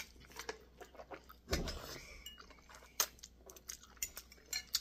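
Metal spoon and fork clinking and tapping against a bowl while eating noodle soup: scattered light clicks, with a duller, louder thump about one and a half seconds in. Chewing comes through between the clicks.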